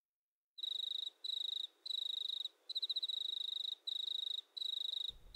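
An insect chirping in high, rapid trills, repeated in bursts of half a second to a second with short gaps between them; it starts about half a second in.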